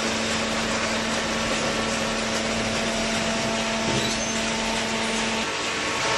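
Cardboard baler machinery running steadily: a constant hum over a continuous hiss of machine noise, with the hum dropping away about five seconds in.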